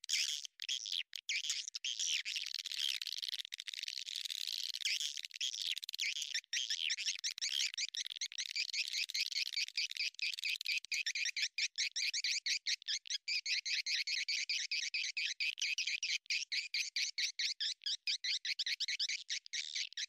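Edible-nest swiftlets twittering in a dense, continuous chorus of rapid high chirps: a swiftlet lure call (suara tarik) of the kind played to draw the birds into a nesting house. The chorus is broken by many brief, sharp drop-outs, which come more often in the second half.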